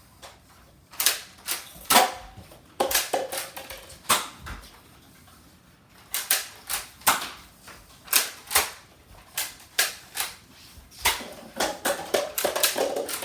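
Irregular series of sharp clicks and knocks, about twenty in all with gaps of up to a second or two between them, bunching closer together near the end.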